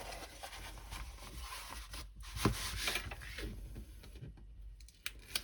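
Rustling and rubbing of a rolled diamond painting canvas being handled and smoothed out, with a sharp tap about two and a half seconds in.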